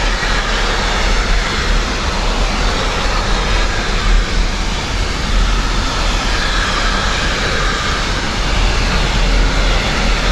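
Container freight wagons rolling past on the rails: a steady, loud rumble of wheels and running gear that holds even throughout.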